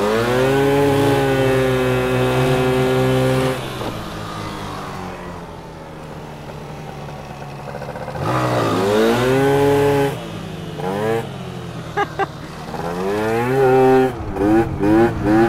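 Small motorbike engines revving hard. The engine sweeps up and holds high for a few seconds, falls away, revs up again about eight seconds in, then gives a string of short throttle blips near the end.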